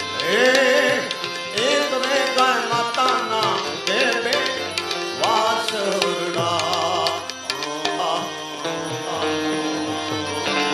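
Live devotional bhajan music: tabla strokes and a harmonium's held chords, with a man singing long, wavering, ornamented notes through roughly the first seven seconds.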